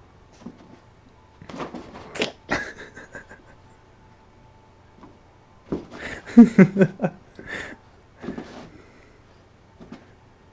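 Jug puppies (Jack Russell–pug mixes) play-fighting, making short growls and yaps in bursts, the loudest cluster about six to seven seconds in.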